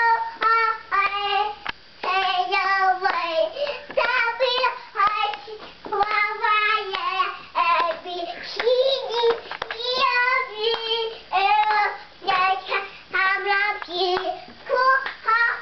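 A toddler singing in a high child's voice, phrase after phrase with short breaks between.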